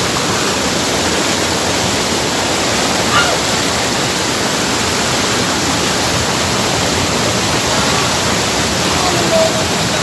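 Waterfall: a loud, steady rush of white water pouring down a narrow rock chute close by. Faint brief voices sound over it about three seconds in and again near the end.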